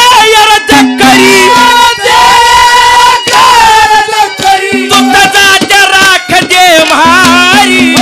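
A man singing a Haryanvi ragni loudly through a stage PA, with long, wavering held notes over instrumental accompaniment, including a steady low note that comes and goes.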